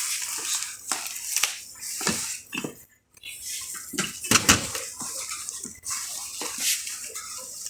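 Irregular metallic clinks and clatters over a steady hiss, with a short lull about three seconds in.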